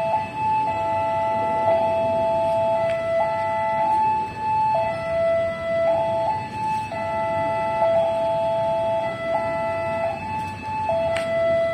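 Railway level-crossing warning alarm sounding, a two-tone signal switching back and forth between a higher and a lower note, over a low background rumble. A short sharp click near the end.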